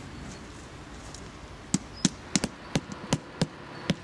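Rubber mallet tapping a concrete paving block down onto its concrete bed to set it to height beside the drainage channel: a quick run of about nine sharp knocks starting a little under two seconds in.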